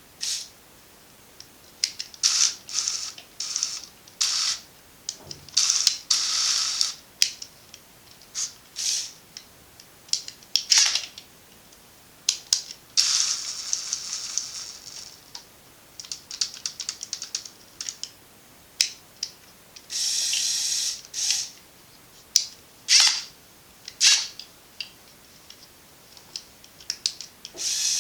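Electric motors and plastic gears of a Lego Technic RC excavator running in short, repeated bursts with a mechanical ratcheting whir, most under a second and a few lasting one to two seconds.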